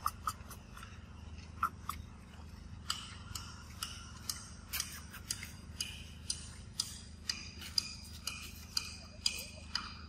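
Irregular sharp clicks and ticks, roughly one or two a second, over a faint steady low hum.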